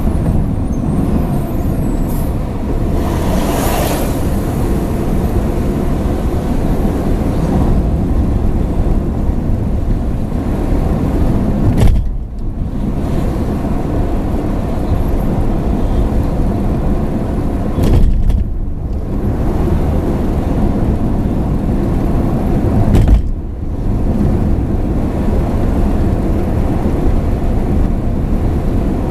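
Steady low rumble of engine and tyre noise inside a moving car's cabin, with a brief hiss that swells and fades about three seconds in. Three sharp thumps break through, a little before halfway, around two-thirds of the way and about four-fifths of the way.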